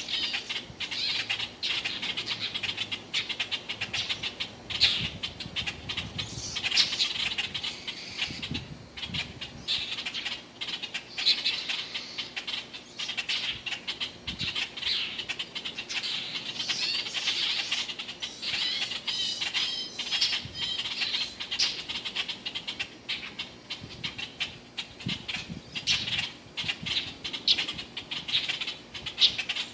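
Baby bird calling over and over with rapid high-pitched cheeps and squawks.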